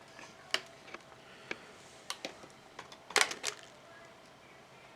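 Scattered sharp plastic clicks and taps from a laptop keyboard being lifted out and handled, with a quick cluster of louder clicks about three seconds in.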